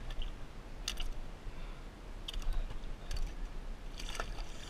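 A few separate light clicks and knocks, a cluster of them near the end, over a steady low rumble.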